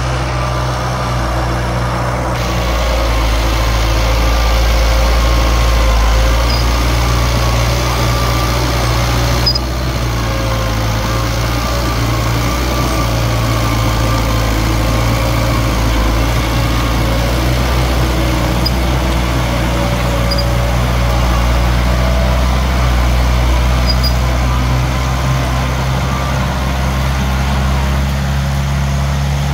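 Diesel engine of a small Komatsu D21P bulldozer running steadily while working, with a deep, even hum that swells and eases slightly.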